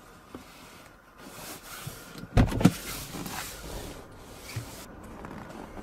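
Rustling of someone moving out of the car's seat, then the door of a 2014 Opel Antara shutting with a heavy double thud about two and a half seconds in.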